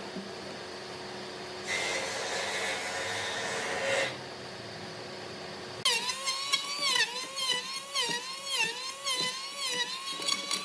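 A small power tool's motor running: first a short whirring burst of about two seconds, then from about six seconds in a high-pitched whine that dips in pitch and recovers again and again as the tool is loaded and eased off.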